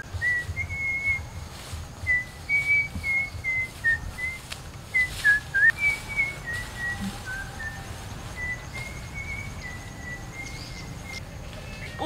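A person whistling a slow tune, one clear note after another with small slides between them, stopping about a second before the end.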